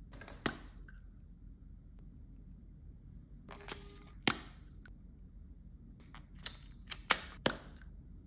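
Handling of small cardboard makeup boxes and plastic blush sticks: a few sharp clicks and taps, grouped near the start, the middle and the end, with brief rustles of packaging.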